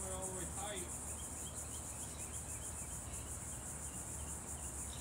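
Steady, high-pitched chirring of insects, an even pulsing drone, with a faint voice for about the first second.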